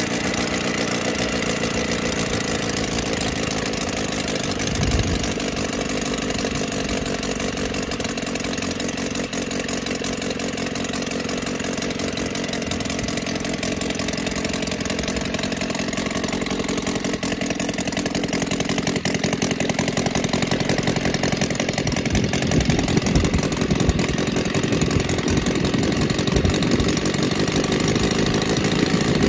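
Roto 170cc flat-four four-stroke model aircraft engine running steadily on a test stand, turning a Menz 30x12 wooden propeller. It gets a little louder and rougher in the last several seconds.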